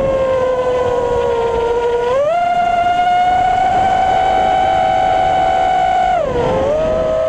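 FPV racing quadcopter's brushless motors and propellers whining in flight. The pitch climbs sharply about two seconds in, holds high, then falls back about six seconds in.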